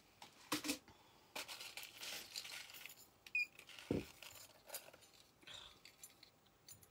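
Intermittent rustling and light clicks as jewelry pieces on their display cards are handled and picked up, with a soft knock about four seconds in.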